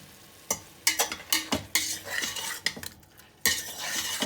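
A metal spoon stirring chicken pieces sautéing in oil in a pressure cooker pot: repeated knocks and scrapes against the pot, starting about half a second in and loudest near the end.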